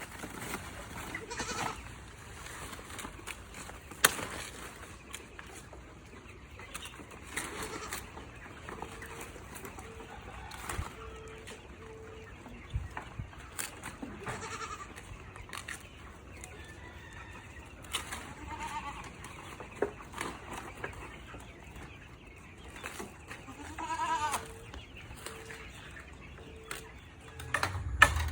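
Goats bleating now and then, with a sharp click about four seconds in.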